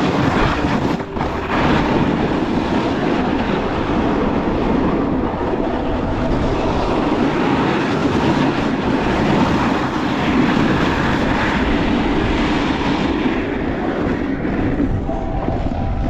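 A vehicle engine running steadily at speed, with a dense rushing noise over it and a brief dip about a second in.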